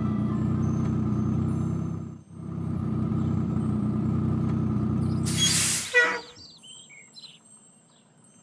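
Truck engine sound effect running steadily, dipping out for a moment about two seconds in. About five seconds in comes a sharp air-brake hiss as the truck stops, ending in a thump, followed by faint high chirps.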